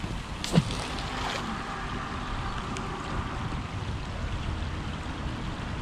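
Steady hiss of rain falling on a river, with one sharp knock about half a second in.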